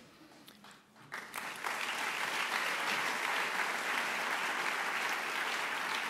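Audience applauding: a few scattered claps, then about a second in the crowd breaks into steady applause that holds.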